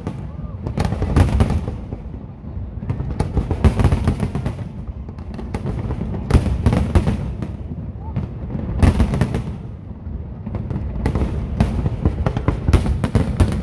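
Aerial fireworks bursting in a dense, irregular run of bangs and crackles over a continuous low rumble.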